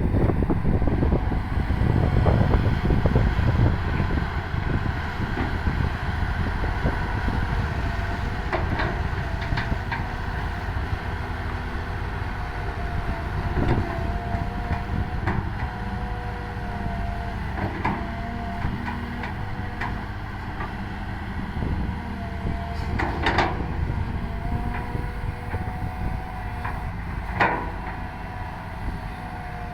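Excavator's diesel engine running steadily under work, with a faint wavering whine above the rumble. Several sharp knocks punctuate it, the loudest two near the end. The rumble is heaviest in the first few seconds, then eases.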